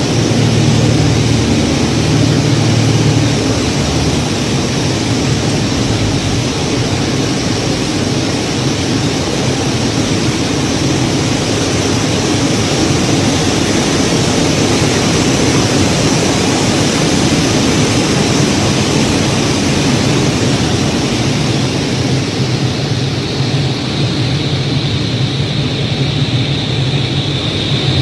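Light propeller aircraft's engine and airflow heard from inside the cockpit in flight: a steady rushing noise over a low engine drone. The drone eases after a few seconds, then strengthens again near the end as a faint high whine joins in.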